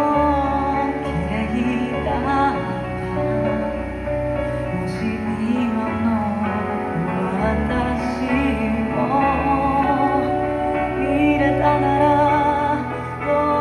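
A song: a singing voice with vibrato over instrumental accompaniment with sustained bass notes.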